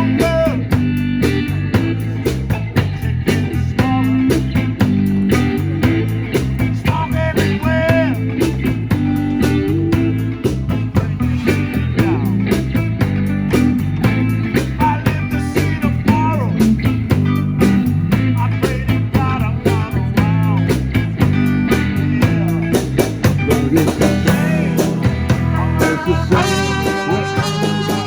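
Live band playing a blues-rock song: guitar over a steady drum beat and heavy low notes.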